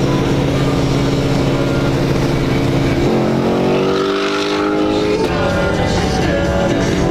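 Car engine and exhaust running steadily at cruise, heard from inside a Ford Mustang's cabin. About three seconds in it accelerates, its pitch rising for a couple of seconds, then drops back suddenly and settles.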